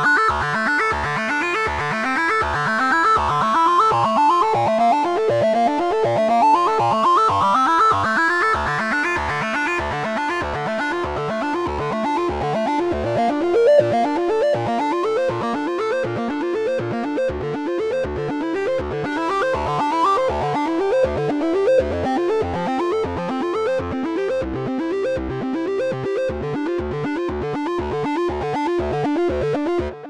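Arturia SQ80 V software synthesizer, an emulation of the Ensoniq SQ-80, playing a bright, plucky patch. Fast, evenly repeated bass notes run under a busy upper line, which sweeps up and down in the first several seconds; the filter cutoff is being adjusted as it plays.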